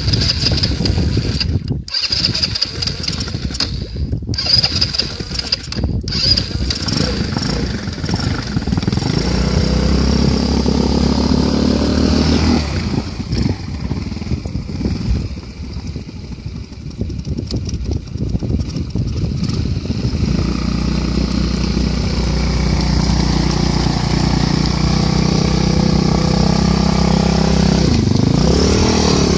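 Small engine of a two-wheel-drive off-road motorcycle being started, catching and settling into a steady idle. Its sound weakens for a few seconds in the middle and then runs steadily again.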